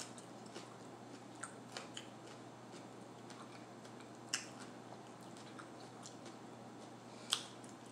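Faint chewing of a raw mini pepper, with scattered crisp crunches and two sharper clicks about four and seven seconds in.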